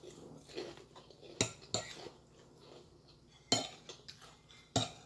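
Metal cutlery clinking and scraping against a ceramic plate while eating, with a few sharp clinks scattered through, the loudest about midway and near the end.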